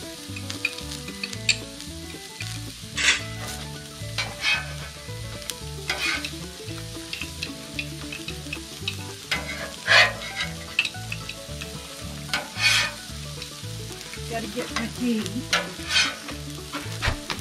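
An omelet sizzling as it fries in a pan, with a utensil scraping and clinking against the pan about six times, loudest about ten seconds in. Soft background music with a stepping bass line runs underneath.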